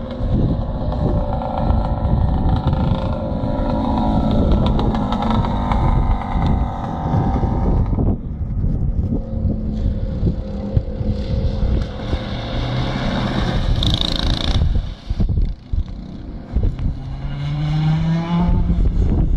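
Racing go-kart engines running round the circuit, their note rising and falling as the karts brake and accelerate through the corners, with a clear rising note near the end as a kart accelerates. Wind buffets the microphone.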